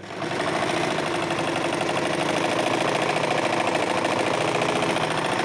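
Chaika 142M household sewing machine driven by its new electric motor and belt, starting up and running steadily at speed while stitching a test seam.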